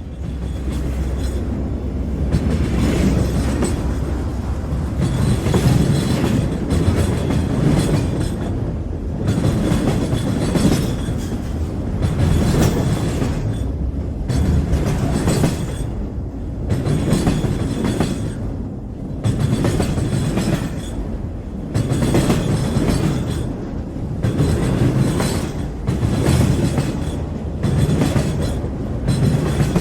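Train running along the track: a continuous heavy rumble of wheels on rails under a steady low hum, swelling and easing every couple of seconds.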